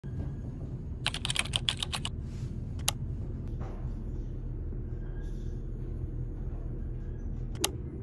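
Elevator car travelling down with a steady low hum. About a second in comes a quick run of about ten sharp clicks lasting a second, then single clicks, one a couple of seconds later and one near the end.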